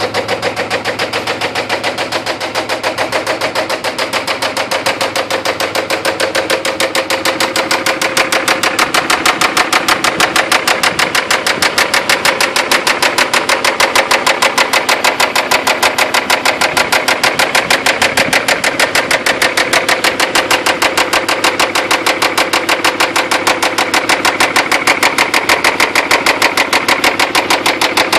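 Toyota 4Runner engine running with a rapid, even knocking that becomes a little louder after about eight seconds. The owner fears internal damage such as a bent rod, from over-revving it with low oil pressure.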